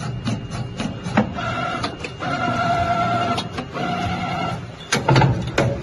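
CNC bending machine working stainless steel strip: a motor whine at a steady pitch comes in short stretches, stopping and starting, between sharp clicks. A louder clatter comes about five seconds in.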